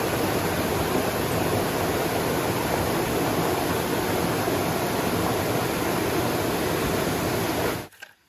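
Small waterfall splashing into a pool: a steady, loud rush of falling water that cuts off abruptly near the end.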